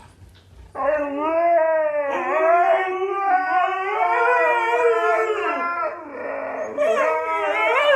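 A dog howling in long, drawn-out howls whose pitch wavers up and down. The howling starts about a second in, pauses briefly near six seconds, and starts again about a second later.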